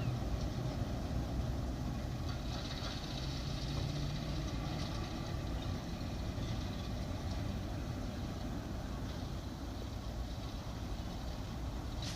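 Class 08 diesel shunter's English Electric six-cylinder engine running at a steady low rumble, close to idle.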